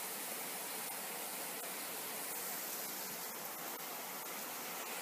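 Heavy rain pouring steadily, a continuous hiss with a few faint scattered ticks.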